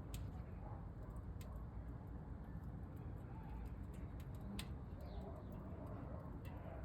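Wood fire crackling inside a small camp stove: a few sharp pops over a low, steady rumble.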